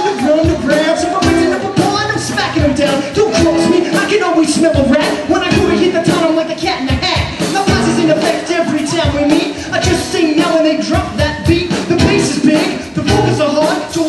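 Live band playing an instrumental section: a fiddle carries a wavering melody over strummed acoustic guitar, electric bass and a drum kit.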